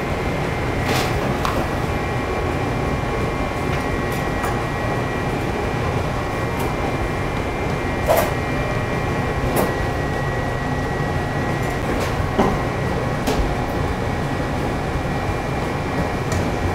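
Steady machine hum with a faint high whine in it, the drone of kitchen ventilation or air conditioning, broken by a few light clicks and taps spread through.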